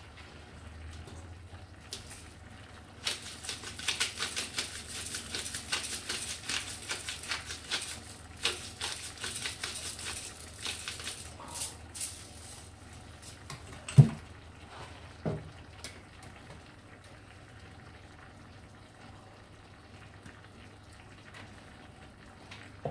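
Kitchen noises while cooking at a stove: a quick, irregular run of crackling ticks for about eight seconds, then a sharp knock and a duller thump a second later.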